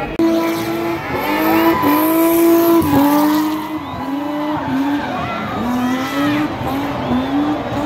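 BMW M20 straight-six engine held at high revs during a spin, its pitch dipping and climbing again over and over, with the tyres screeching.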